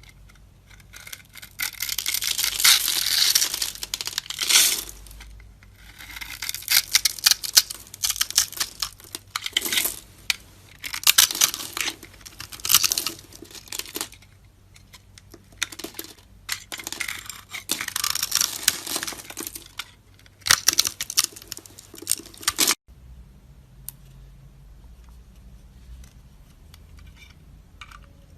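A knife cutting and carving dry soap: crisp, crunchy scraping in repeated bursts, some brief, some several seconds long. About 23 seconds in it stops abruptly, leaving a quieter stretch with a few faint ticks.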